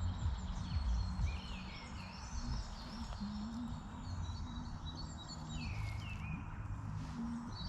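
Woodland birdsong: many quick chirps and warbled phrases from songbirds, over a low rumble.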